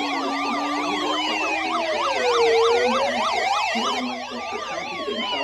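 Electronic sirens sounding together: a slow wail rising and falling about every four seconds, overlaid by a fast yelp warbling about four to five times a second.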